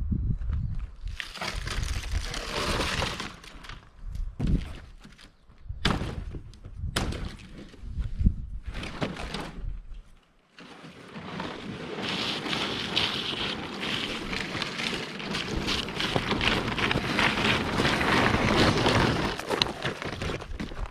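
Demolition debris from a gutted RV wall and roof, aluminium sheet and trim among it, being handled and thrown onto a pile: several separate knocks and crashes over the first half, then, after a short pause, a long stretch of continuous scraping, crunching and crackling.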